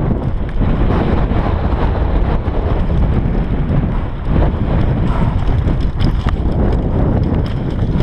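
Wind buffeting the microphone of a GoPro in its housing on a mountain bike descending at speed: a loud, steady low rumble. Frequent small knocks and rattles come through it as the bike runs over the rough, stony dirt trail.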